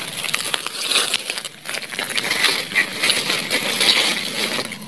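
Dry fallen leaves and twigs rustling and crackling as a hand pushes through leaf litter, with many small irregular clicks and a short pause about a second and a half in.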